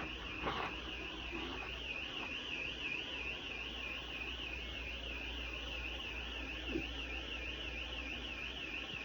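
Hospital alarm sounding continuously: a high electronic tone warbling evenly up and down a few times a second, over a steady low hum.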